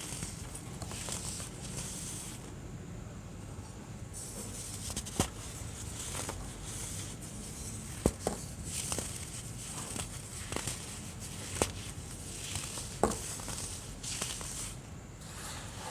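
White baking soda being crushed, a continuous gritty crunching and crackling with sharp cracks every second or so.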